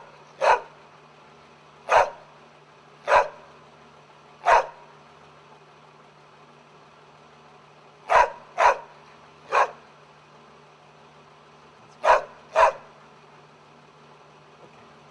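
A large white long-haired dog barking: about ten short, sharp barks, some single and some in quick pairs, with pauses of a second or more between them.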